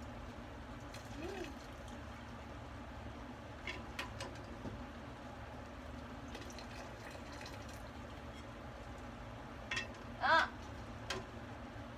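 Light clicks and taps as boiled eggs are handled with a ladle and a metal mesh strainer over a pot, against a steady low hum. The loudest thing is one short squeaky pitched sound, rising then falling, about ten seconds in.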